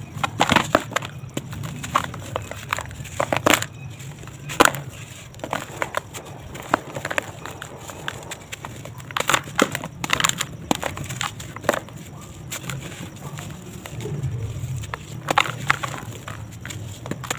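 A dry sand-cement chunk crumbled between bare hands over a plastic tub: irregular crunching and crackling as it breaks apart, over a steady low hum.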